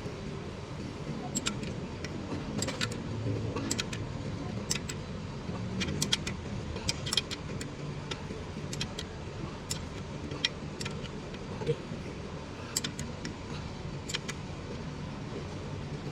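Irregular sharp metallic clicks and clinks, like hand tools knocking on engine parts, over a steady low rumble.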